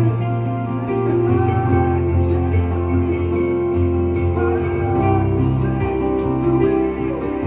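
Live acoustic band music: strummed acoustic guitar over steady held low notes, playing continuously.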